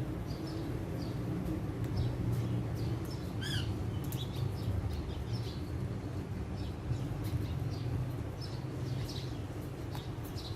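Birds chirping: short high chirps scattered throughout, with a quick run of chirps about three and a half seconds in, over a steady low rumble.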